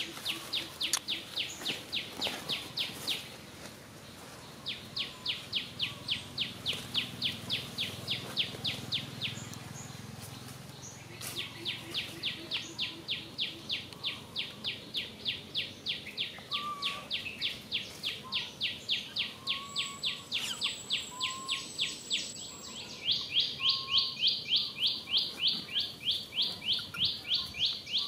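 A bird chirping in rapid, evenly spaced runs of high notes, about six a second, with short breaks between runs. A few short, lower calls sound in the second half.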